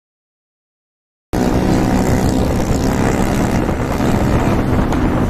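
Silent for about the first second, then a motorcycle engine cuts in running steadily at speed, with wind rush over it.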